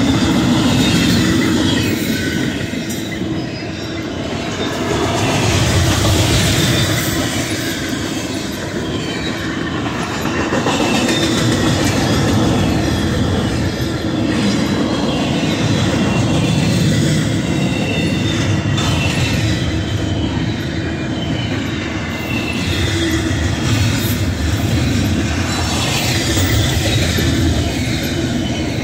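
Union Pacific double-stack container train passing close by: a steady rumble of steel wheels on rail with scattered clicks and a faint high wheel squeal. The loudness swells and dips every few seconds as the well cars go by.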